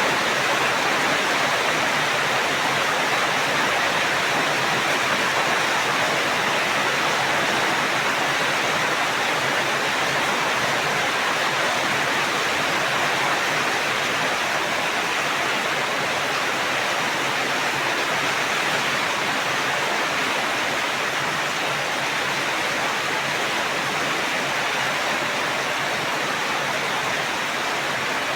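Steady heavy rain, an even dense hiss that holds level throughout.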